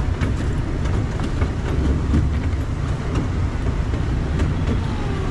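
Miniature train's open passenger car rolling along its track: a steady low rumble of wheels on rail, with scattered clicks from the wheels on the track.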